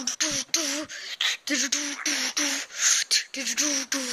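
A person's voice close to the microphone, humming a wavering pitch broken about three times a second by sharp percussive mouth clicks and hisses, in a beatbox style.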